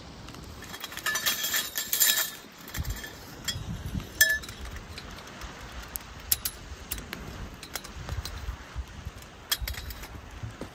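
Metal campfire tripod poles clinking and rattling against each other as they are unpacked and set up. There is a cluster of clinks in the first couple of seconds, one sharper ringing clink about four seconds in, and scattered lighter clinks later as the tripod is stood up over the fire.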